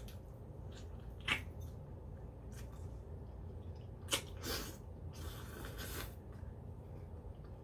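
Close-miked mouth sounds of eating chicken by hand: a few sharp wet smacks as meat is sucked and pulled off the bone, and a second-long breathy rush about five seconds in, over a low steady hum.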